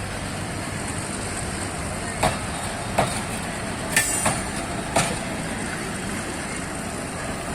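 Train rolling along the track: a steady rumble with sharp clacks of the wheels over rail joints, roughly one a second.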